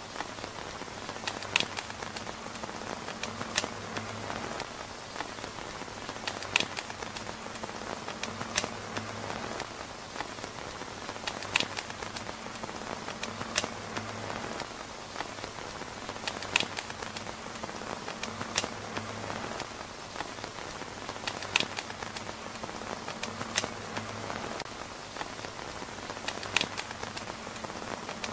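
Steady rain pattering on a tent roof, with a sharp tick every two to three seconds. The same pattern repeats about every five seconds.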